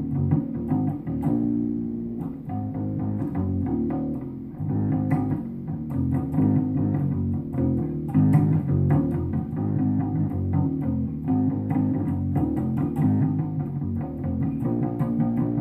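Electric bass guitar played continuously: a busy line of low plucked notes that change several times a second.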